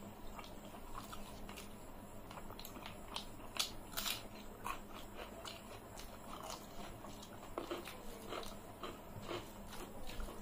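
Close-up eating sounds of two people eating rice and chicken curry by hand: wet chewing, lip smacks and fingers working food on metal plates, heard as a string of irregular short clicks. The sharpest clicks come a little before and at about four seconds in.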